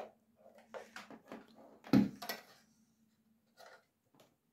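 Handling noise of a plastic USB hard-drive dock and its cable: a string of light clicks and knocks, with one louder thump about two seconds in as the dock is set down on a wooden desk, and a faint click near the end.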